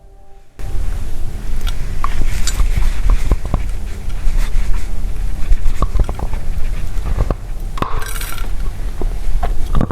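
Dusty chalk tiles crunching and crumbling as they are crushed close to the microphone: many small sharp cracks over a steady gritty crunch, starting about half a second in.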